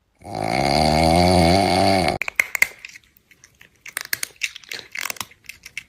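A loud, wavering cry lasting about two seconds, then a stretch of irregular crunching and chewing clicks.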